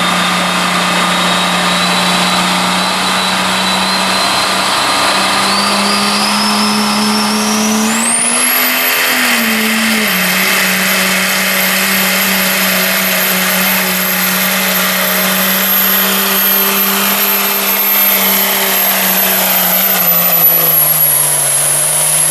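Turbocharged diesel pickup truck running under full load while pulling a sled. A high turbo whistle climbs steadily, jumps sharply higher about eight seconds in and holds there, while the engine note stays steady and sags near the end.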